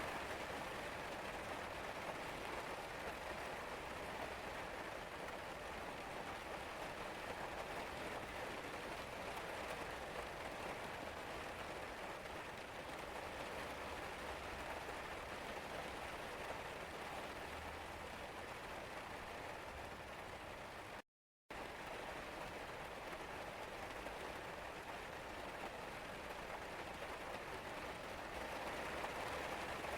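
Steady rain falling and pattering on surfaces, an even hiss without change, broken by a brief total cut-out to silence about two-thirds of the way through.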